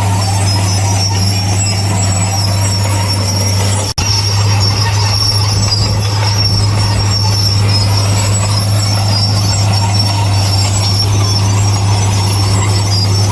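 Crawler bulldozer's diesel engine running with a steady low drone, its steel tracks squealing and clanking. The sound drops out for an instant about four seconds in, then carries on as before.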